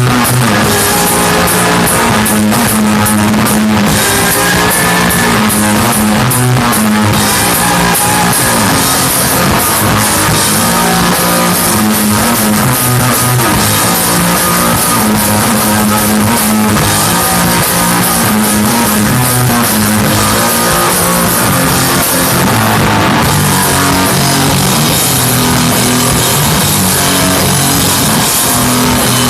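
Loud rock music from a band: electric guitars, bass and drum kit playing continuously.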